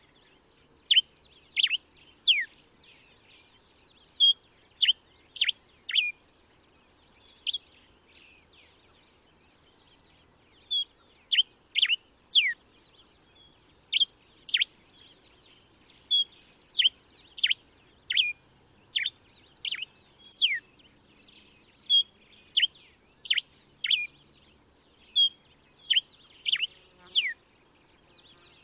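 Common diuca finch (Diuca diuca) singing: a run of short, clear notes that sweep downward, delivered singly or in quick pairs, with a pause of a few seconds early in the song. Twice a thin, high whistle is held for about a second.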